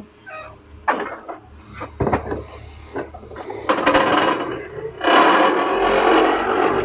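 Hydraulic vibratory pile driver at work: irregular rasping, scraping and knocking of metal, turning into a dense, loud, steady grinding rattle about five seconds in.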